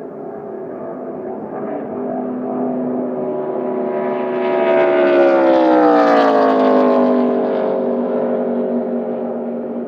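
ARCA stock car's V8 engine at full throttle passing at speed: the engine note grows louder, drops in pitch as the car goes by about five to seven seconds in, then fades away.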